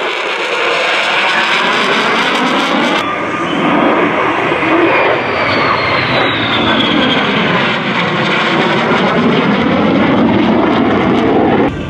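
F-35 fighter's single F135 afterburning turbofan running loud in a high-G demonstration turn overhead. It is a steady, dense jet noise with a sweeping, shifting whoosh as the jet moves, and a high whine falls in pitch about halfway through.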